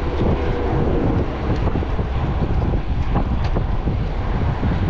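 Wind rushing over the microphone of a camera riding on a moving road bike: a steady low rumble, with a few faint ticks.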